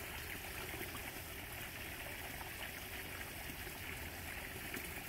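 Steady trickle of running water at the pond, an even rushing with no break or change.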